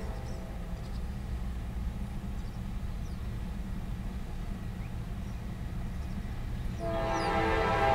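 Low steady rumble of an approaching Norfolk Southern freight train. About seven seconds in, the locomotive's air horn starts sounding, a chord of several steady tones.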